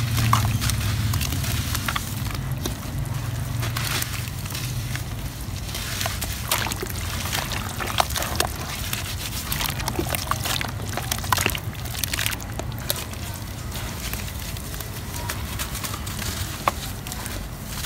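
Hands squeezing and crumbling lumps of wet red soil paste in a tub of muddy water: wet squelching and sloshing, with many small crackles as the clods break apart, over a steady low rumble.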